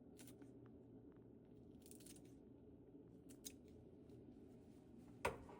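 Near silence with faint room hum, broken by a few small handling clicks and snips, and one sharper knock near the end.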